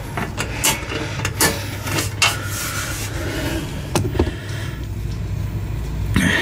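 Clicks and knocks of hands working the switches, reset button and key on a dual-fuel portable generator's control panel, over a steady low hum.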